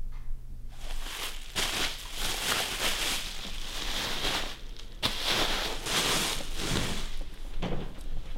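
Packing wrap crinkling and rustling in the hands as a boxed item is unwrapped, starting about a second in, with a sharp click about five seconds in.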